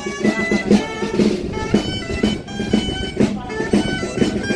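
Music from a reed wind instrument, a melody played over a steady low drone.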